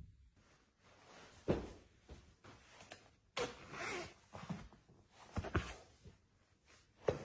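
Hands handling a linen-covered fabric storage box: several soft knocks and rustles, and a zipper drawn along the box's seam about halfway through.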